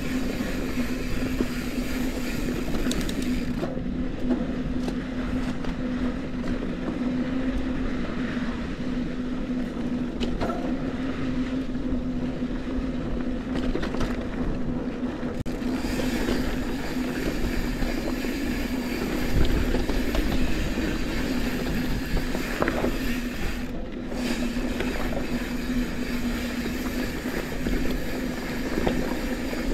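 Santa Cruz 5010 mountain bike rolling along dusty dirt singletrack: steady tyre and rattle noise with a constant hum, and a few knocks over bumps, the loudest about two thirds through.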